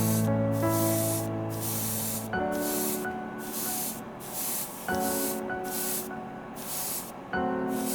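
Clear red paint sprayed onto a small resin-printed car body in a series of short hissing bursts, roughly one a second, over background music.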